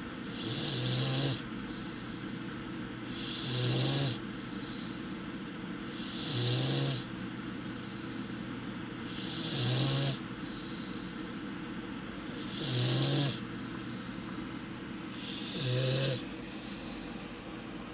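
Great Dane puppy snoring in its sleep, one short snore about every three seconds, six in all.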